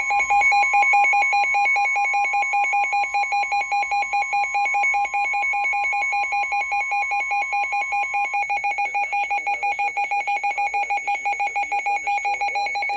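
Emergency alert attention tone from a NOAA Weather Radio broadcast, sounded ahead of a severe thunderstorm warning: a loud, steady, high-pitched alarm of two tones with a fast pulsing over it. The higher tone drops out about eight seconds in, and the lower one carries on.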